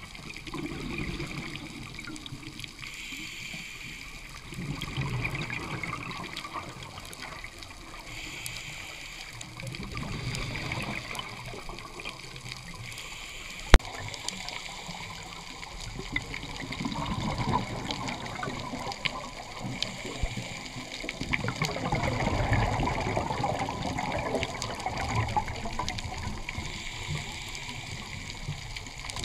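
Scuba diver's regulator breathing, heard underwater: a bubbling gurgle of exhaled air every few seconds, with softer hisses between. A single sharp click about halfway through.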